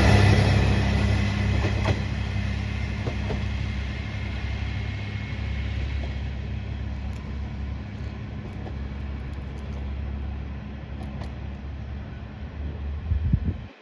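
Kanto Railway KiHa 2200 diesel railcar's engine running as a steady low hum, gradually fading as the railcar moves away. A brief louder swell comes just before the end.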